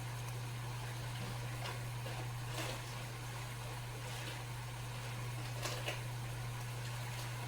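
Food frying in a pan: a faint, even hiss with a few scattered crackles, over a steady low hum.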